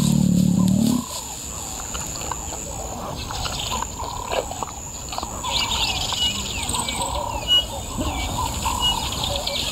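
Outdoor bush ambience with several birds chirping and calling; from about five seconds in one bird repeats a short high note at regular intervals. A loud low sound in the first second cuts off abruptly.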